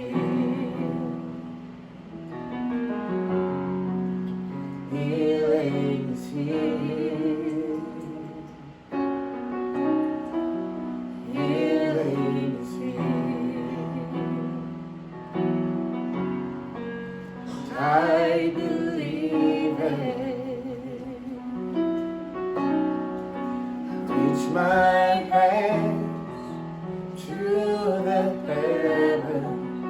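Gospel worship song: sung vocals with vibrato over sustained piano chords.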